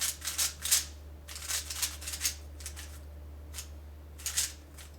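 A MoYu 3x3 speed cube's plastic layers being turned by hand: quick bunches of clicky, scratchy turning with short pauses, the longest spurts in the first two seconds.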